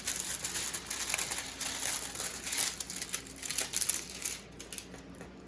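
Stiff plastic-coated diamond painting canvas crinkling and crackling as it is handled, dying away about four seconds in.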